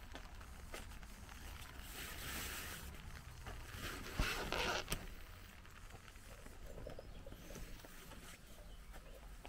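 Footsteps on a wet lane amid rainy outdoor ambience, with a low rumble underneath. About four seconds in, a brief louder rush of hiss with a sharp click stands out.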